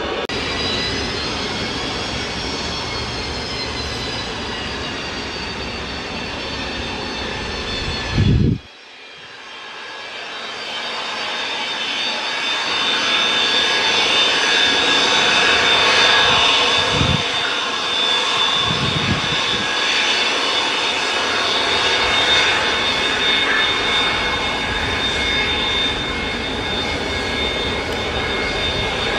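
Boeing 737-200's Pratt & Whitney JT8D turbofans running at taxi power: a steady roar with high, steady whining tones. About eight seconds in the sound breaks off with a brief thump, then builds back up over the next several seconds and holds steady.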